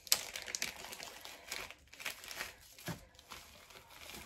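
Thin clear plastic bag crinkling as hands handle it, with irregular crackles.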